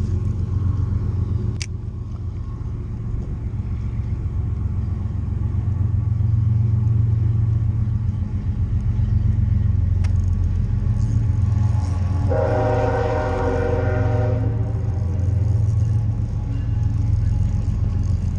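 A steady low rumble with one horn blast lasting about two seconds, about twelve seconds in.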